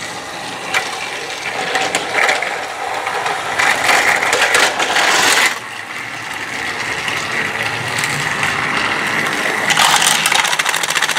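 Battery-powered Trackmaster toy train engines running on plastic track: a steady whirring of small motors with a busy clicking and rattling of wheels over the track joints. The sound is louder for the first few seconds and drops back about halfway through.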